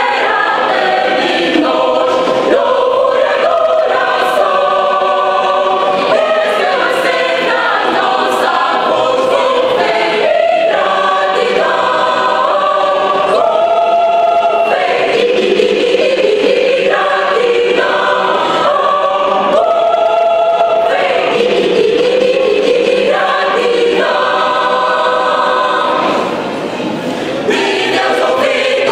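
Mixed choir of women and men singing together, with a brief lull between phrases near the end.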